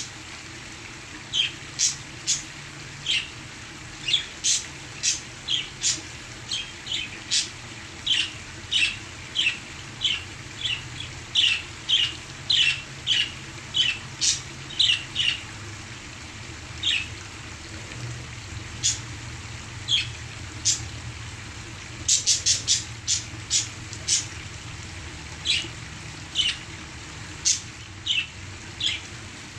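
Parakeets chirping and squawking in short, sharp calls, coming in quick runs with a dense flurry about three-quarters of the way through, over a steady rush of waterfall sound.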